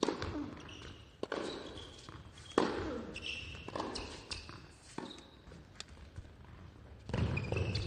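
Tennis rally on an indoor hard court: sharp racket strikes and ball bounces about every second, echoing in the hall, with shoe squeaks in between. Near the end the crowd noise rises as the point ends.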